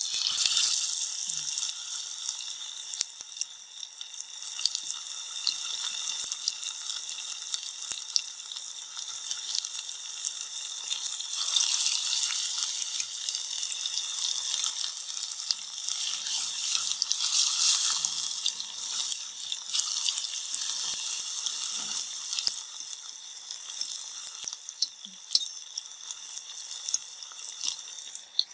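Spice-coated chicken pieces deep-frying in hot oil in a pot: a steady, crackling sizzle that surges as a fresh piece goes into the oil at the start and swells louder again a couple of times midway.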